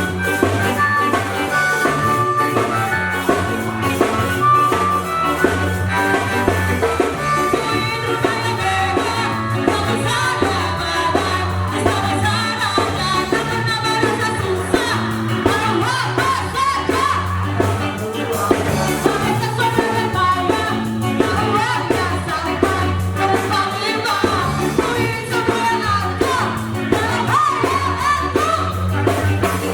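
A ska band playing live: a steady drum and bass beat under held melodic notes, with a singer's voice coming in about a third of the way through.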